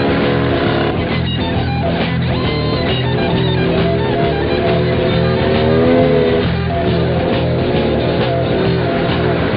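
Background rock music led by guitar, with a steady bass underneath.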